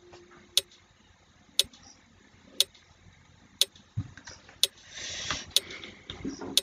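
Countdown timer ticking, one sharp click each second.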